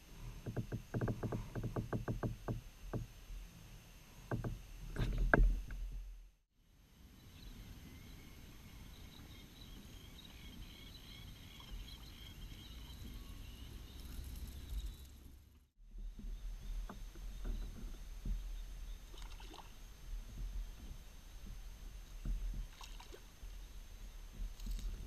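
Fishing kayak on calm water: water lapping and knocking against the hull over a steady low rumble, in three short clips cut together. A run of quick clicks comes near the start, and high chirping notes run through the middle clip.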